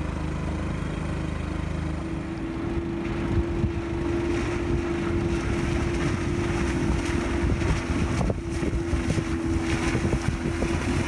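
Small outboard motor on an inflatable dinghy running at speed, towing a rider on a board, with a steady drone that sets in about two seconds in. Wind buffets the microphone.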